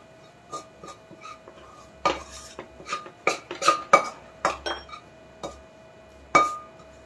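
Metal spoon scraping and knocking against the inside of a stainless-steel kadhai as the stiff barfi mixture is scraped out. Irregular clinks with a short metallic ring, a quick cluster in the middle and one last clink near the end.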